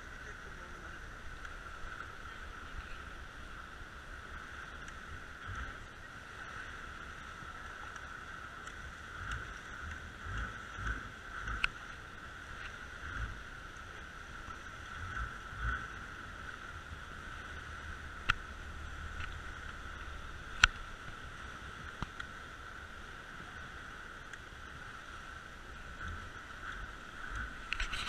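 Small open tour boat moving slowly into a sea cave: water sloshing against the hull and the rock, over a steady high hum, with a few sharp knocks.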